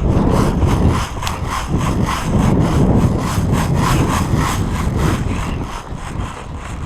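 Running footsteps, about three to four strides a second, with clothing and gear rubbing against a body-worn microphone.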